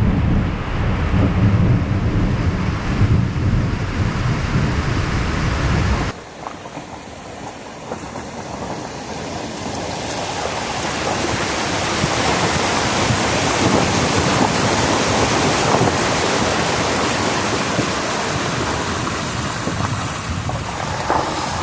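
Heavy rain pouring down as a steady, loud hiss. For about the first six seconds it comes with a deep rumble. There is a sudden change about six seconds in, after which the rain alone swells and holds steady.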